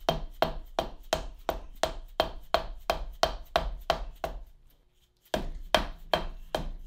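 Rapid hammer blows, about three a second, on a CV axle joint housing, driving it back on over the ball bearings. Each blow has a short ring. The strikes stop briefly about four and a half seconds in, then start again.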